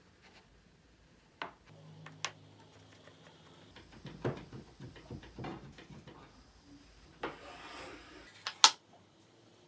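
Wooden dials and parts of a handmade wooden lock box being worked by hand: scattered clicks and taps, a run of knocks about halfway through, a scrape of about a second, then a sharp wooden knock near the end, the loudest sound.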